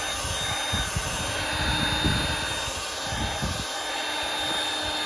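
Handheld hot-air blower running steadily with a faint high whine, heating the perimeter adhesive of an iPhone XR screen to soften it before prying.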